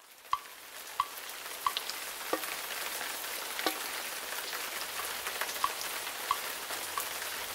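Rain: a steady hiss of falling rain that swells in over the first second, with single drops plinking at an even pace, about three every two seconds.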